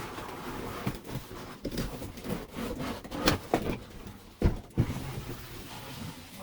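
A package being handled and opened by hand: irregular rustling and rubbing with a few sharp knocks and taps, the loudest a little past the middle.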